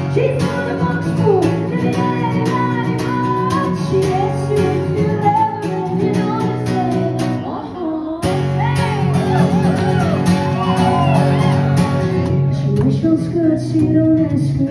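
Live band playing a guitar-driven song with a woman singing over it; the music drops out briefly and comes back in sharply about eight seconds in.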